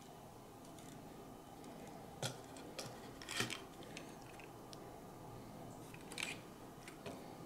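Light plastic clicks and taps of a drone's shell and camera-module parts being handled by hand, a handful of them, the loudest a little over three seconds in, over a faint steady room hum.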